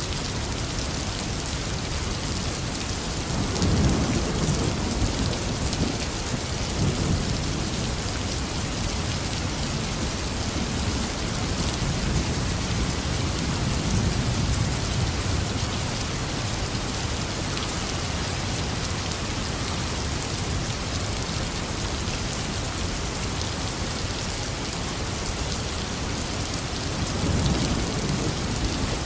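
Heavy rain falling steadily, with low rolls of thunder rumbling a few seconds in, again around the middle, and near the end.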